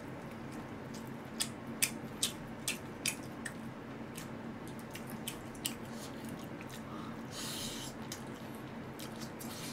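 Scattered soft clicks and smacks of a person chewing jokbal (braised pig's trotters), over a faint steady hum.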